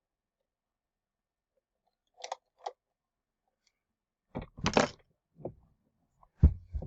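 Handling noises from a plastic animatronic toy dog being taken apart: two small clicks, then a burst of rustling and scraping and several knocks, the loudest a low thump late on.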